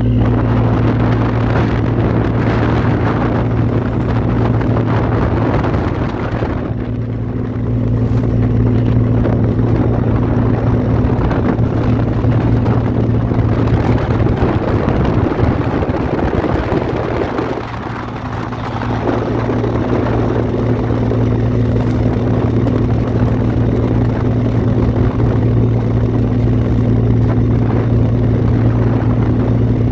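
Fishing boat's inboard engine running steadily, a constant low drone over a rush of water and wind noise.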